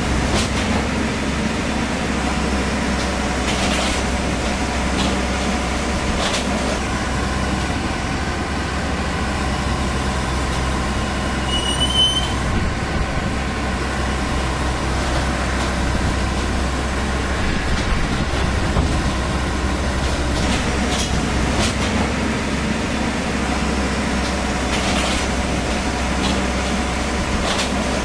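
Large diesel engine idling steadily with a low, even drone. A few faint knocks and a brief high chirp about twelve seconds in.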